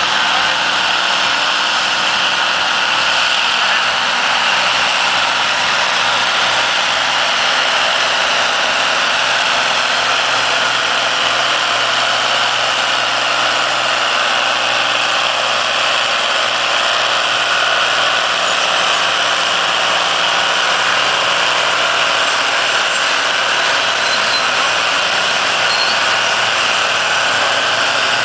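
Fiat F120 tractor's diesel engine running hard under load as it pulls a weight-transfer sled; a loud, steady drone with no let-up.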